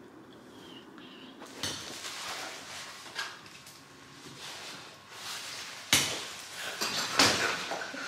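Rustling and a few sharp knocks as a person shifts and moves about, in irregular stretches with the loudest knocks about six and seven seconds in.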